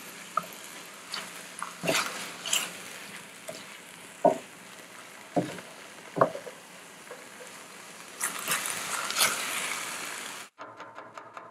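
Wooden spatula stirring soaked basmati rice and chopped vegetables in a stainless steel pan, with a faint sizzle of the rice frying in oil before the water is added. Scattered sharp scrapes and knocks of the spatula against the pan, a louder stretch of stirring near the end, then the sound stops abruptly.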